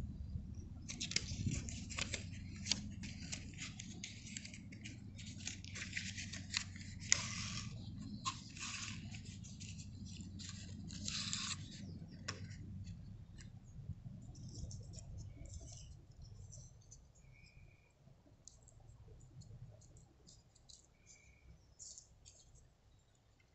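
Paper and cardboard incense packaging handled by hand: a paper sleeve and box crinkling and rustling, dense for about the first half, then only scattered small clicks and rustles. A steady low rumble sits underneath.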